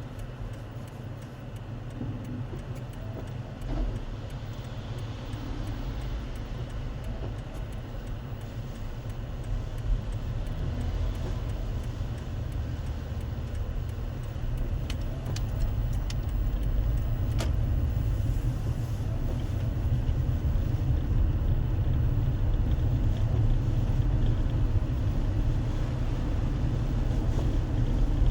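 A car driving: a steady low rumble of engine and tyres on the road, growing louder from about halfway through.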